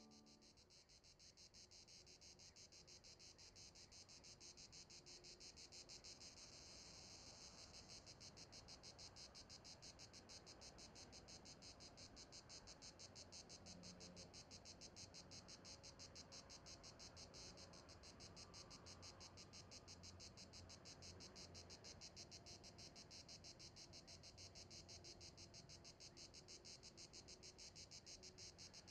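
Faint chorus of crickets chirping in a rapid, even pulse.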